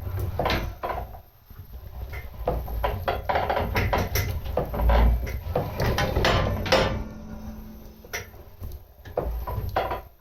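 Homebuilt 100 lb trip-style power hammer running on its new direct drive, the ram striking down in a rapid, uneven run of heavy blows, easing off near the end.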